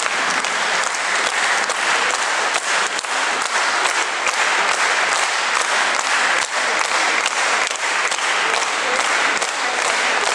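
Concert audience applauding, a dense steady clapping that keeps up without a break.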